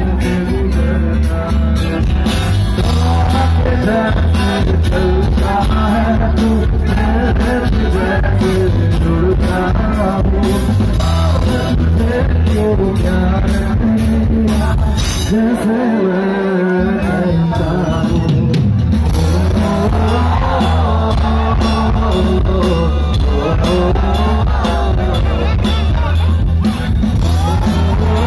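A live band and singer playing loudly over a PA, with a steady drum beat, heavy bass and a sung melody on top; the bass drops out for about a second around halfway, then comes back in.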